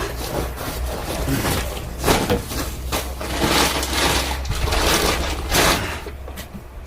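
Irregular rustling and scraping as camping gear is handled and moved about, over a steady low rumble.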